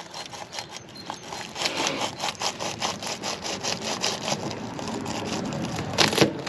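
Hand sanding of a cured underwater epoxy patch around a seacock: quick, even back-and-forth rubbing strokes, about four or five a second, getting louder after about a second and a half, with a couple of harder strokes near the end.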